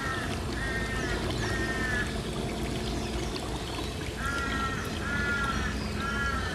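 A bird calling over and over, about one call a second, in two runs with a pause of about two seconds between. Under it runs the low steady hum of an electric trolling motor at slow speed, with water noise.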